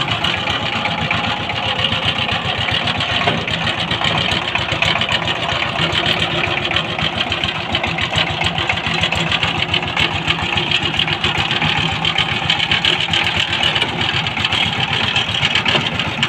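Power tiller's single-cylinder diesel engine running steadily while the two-wheel tractor is driven and turned, its firing strokes a rapid, even pulse.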